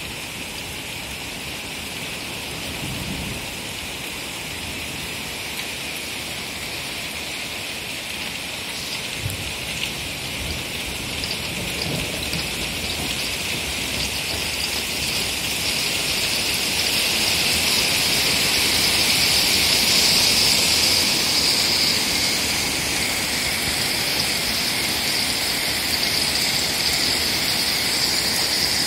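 A heavy downpour of rain and small hail, a steady hiss that swells louder through the first two-thirds and then holds.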